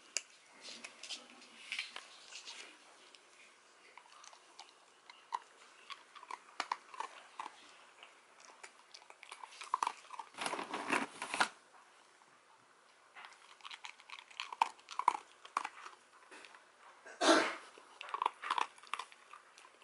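Dachshund crunching and chewing dry kibble taken from a hand, in a run of short crisp crunches. A louder burst of noise lasts over a second around the middle, and a short loud one comes near the end.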